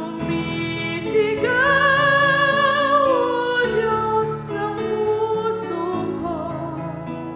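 A woman singing a Tagalog worship song over instrumental backing, holding one long note with vibrato in the middle of the line.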